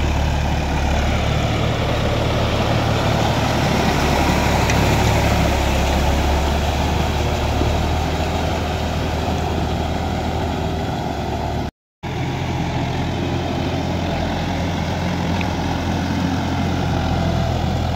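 John Deere 5310 tractor's three-cylinder diesel engine running steadily under load as it drives a rotary tiller through flooded paddy mud, with the churning of the blades in water and mud under it. The sound breaks off for an instant about twelve seconds in, then carries on.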